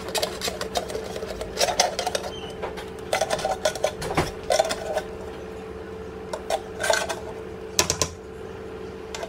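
A wooden spoon scraping and knocking against a metal cooking pot in short, irregular bursts, over a steady hum.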